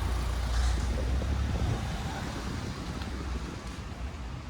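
Wind buffeting the phone's microphone: a ragged low rumble that is strongest in the first couple of seconds and then eases off.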